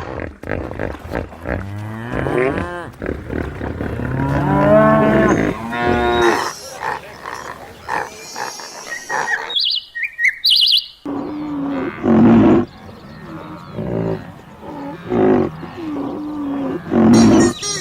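Cows mooing: several long, drawn-out moos that rise and fall in pitch, then a series of shorter moos. A few brief high chirps come about ten seconds in.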